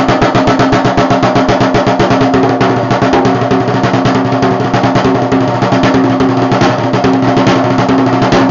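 A drum played with fast, even strokes, several a second in a steady roll-like rhythm, over a sustained low drum tone.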